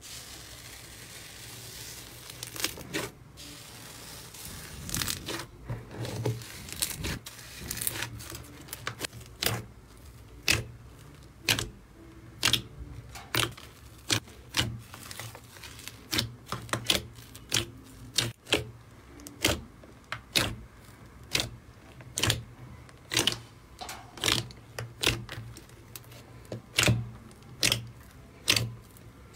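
Thick white slime being pressed, poked and squeezed by hand in a plastic tray, giving a run of sharp clicking pops about one or two a second. The first few seconds hold a softer hissing crackle before the pops take over.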